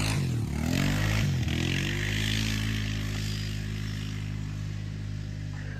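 Polaris Scrambler ATV engine revving up and down as the quad spins and pulls away, then running at a steady pitch and fading as it drives off.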